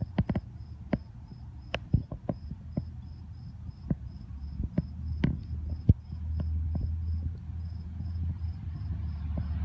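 A cricket chirping steadily in a high, even pulse, about three chirps a second. Several sharp clicks and taps cut in and are the loudest sounds, and a low rumble builds in the second half.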